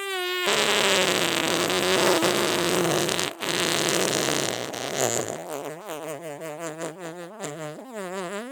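One long fart sound effect. It begins on a short falling tone, then turns into a loud raspy sputter for several seconds, with a brief break about a third of the way in. Past the middle it becomes a low, rapidly wobbling buzz that rises in pitch at the end.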